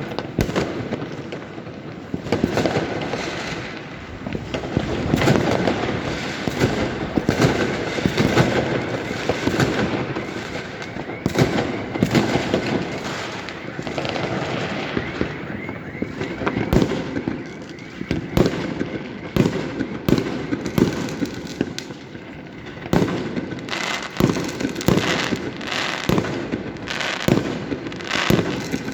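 New Year fireworks and firecrackers going off in a dense, continuous barrage: many overlapping bangs with crackling between them, never letting up.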